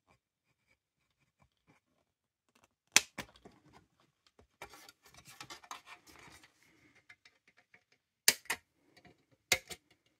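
A plastic model-kit sprue with sail parts being handled on a cutting mat: one sharp plastic click about three seconds in, a stretch of rustling and rattling as the frame is moved, then three sharp clicks near the end as it is put down.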